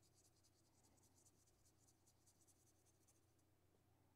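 Faint brushing of a watercolour paintbrush laying paint onto watercolour paper in quick repeated strokes, stopping about three and a half seconds in.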